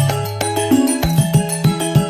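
Music with a bass line and a steady beat.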